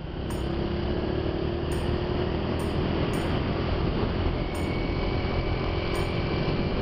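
Vehicle driving along a road, heard from on board: a steady engine drone mixed with road and wind noise, with a faint higher whine joining in the second half.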